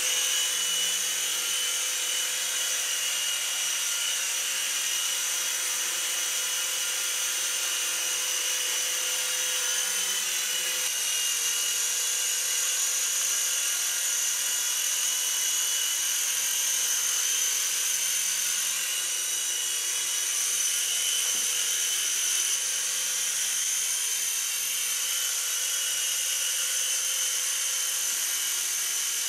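Syma S026G mini Chinook RC helicopter in flight, its small electric motors driving the twin tandem rotors in a steady high-pitched whine and buzz, changing slightly in tone about eleven seconds in.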